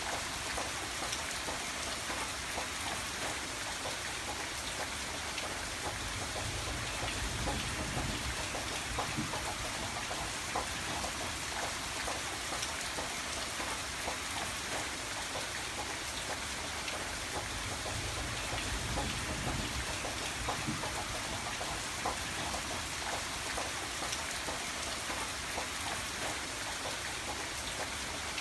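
Steady rain falling, with many individual drops ticking on a surface. A low rumble swells twice underneath.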